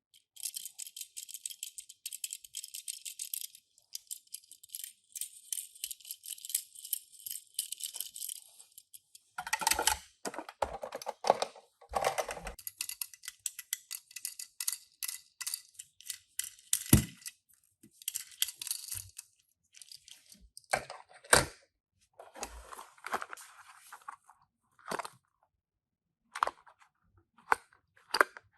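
Unboxing handling noise: about eight seconds of dense, high crinkling of packaging, then irregular rattling, clicks and a few sharp knocks as small die-cast toy cars are handled and set down.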